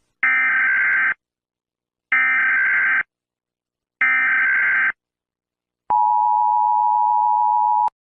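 Emergency Alert System header: three short bursts of screechy data tones, evenly spaced, then the two-tone attention signal held for about two seconds, cutting off abruptly with a click.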